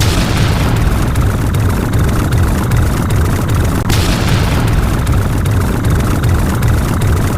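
Loud, continuous low rumble, with a fresh rushing burst at the start and again about four seconds in: a rumbling sound effect repeating on a loop.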